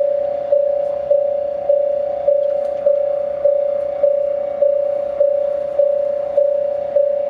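Japanese railway level-crossing alarm ringing: an electronic bell tone struck over and over, a little under two strikes a second, each strike fading before the next. It is the warning that a train is approaching the crossing.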